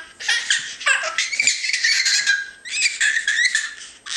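A toddler laughing hard: a long run of high-pitched, rapidly pulsing laughs with short breaks.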